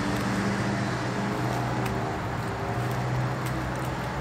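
Steady low hum of motor vehicle engines and road traffic, with a few faint clicks.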